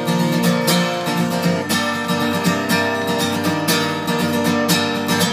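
Background music led by strummed acoustic guitar, with a steady beat.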